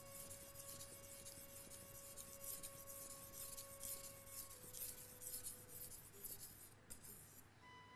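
Steel kitchen-knife blade stroked quickly back and forth on a 1000-grit water whetstone, a faint rhythmic scraping that stops near the end. The knife is tilted up to grind the cutting edge itself.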